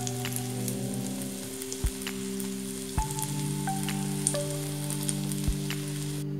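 Banana pancake batter sizzling in hot fat in a nonstick frying pan, a steady sizzle with scattered crackles and pops that cuts off near the end. Soft background music with held notes plays underneath.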